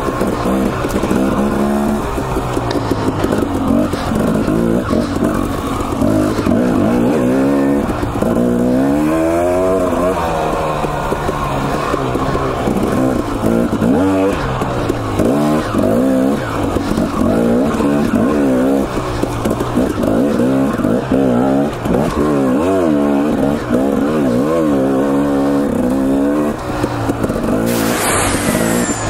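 Husqvarna TE250 two-stroke dirt bike engine revving hard and backing off over and over, its pitch rising and falling every second or two as the throttle is worked. Near the end there is a brief high sweep that falls in pitch.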